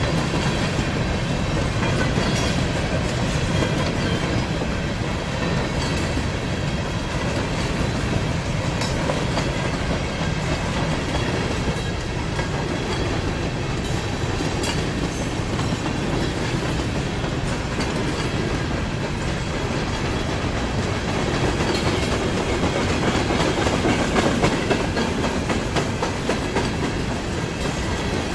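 Norfolk Southern freight train of covered hopper cars rolling past at steady speed: a continuous rumble of steel wheels on rail, with the clickety-clack of wheels passing over rail joints.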